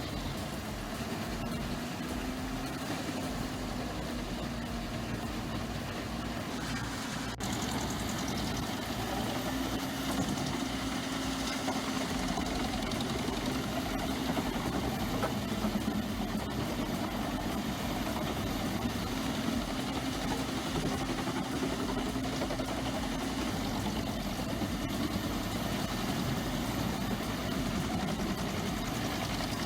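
A heavy machine's engine running steadily at a constant speed, with no strikes or cutting bursts standing out. About seven seconds in there is an abrupt change, where one shot cuts to another.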